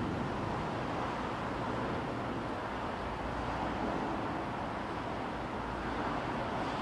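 Steady, even background noise with a low rumble, without distinct events.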